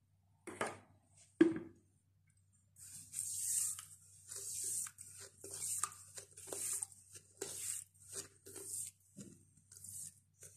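Granulated sugar poured from a bowl into a pot of lemon juice and zest, hissing in repeated surges about once a second. Two knocks come first, the second one sharp and the loudest.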